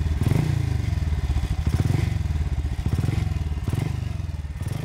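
Seeley G50's 499cc single-cylinder racing engine running, its exhaust note swelling and easing a few times.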